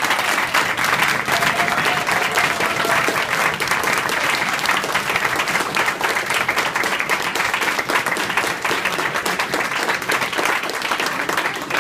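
A roomful of people applauding steadily, many hands clapping at once, with a voice or two faintly heard over it in the first few seconds.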